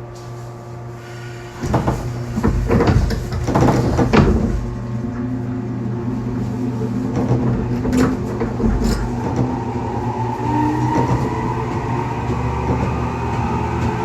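415 series electric train starting off: a burst of clunks and rattles about two seconds in, then running noise with the MT54 traction motors' whine slowly rising in pitch as it gathers speed.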